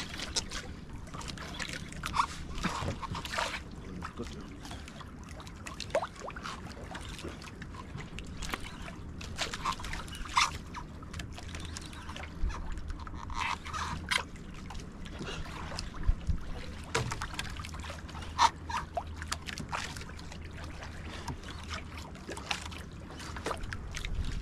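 Water sloshing and trickling against a fishing boat's hull, with scattered short knocks and clicks and a low steady hum underneath.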